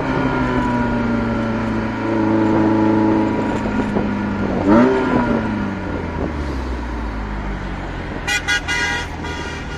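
Ferrari Mondial 3.2's V8 through a custom exhaust, heard from inside the cabin, its revs falling steadily as the car slows, with a brief rise in revs about five seconds in. Near the end a car horn gives several quick toots.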